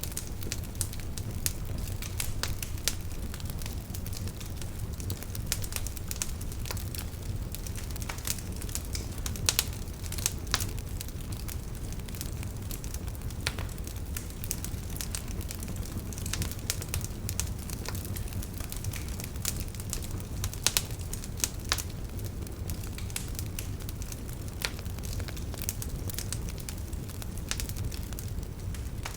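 Campfire burning: wood crackling with many irregular sharp snaps and pops over a steady low rumble of the flames, a few pops louder than the rest.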